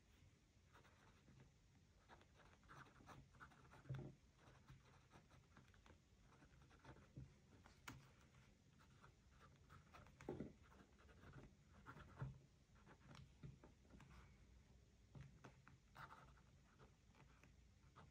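Faint paper and stationery handling for a journal page: irregular scratching and rustling on paper, with a few louder taps.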